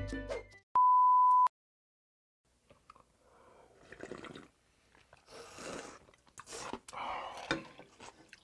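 A short, loud, steady electronic beep near the start. After a brief silence come repeated wet slurps and sips as cold kudzu naengmyeon noodles and icy broth are eaten and drunk from steel bowls.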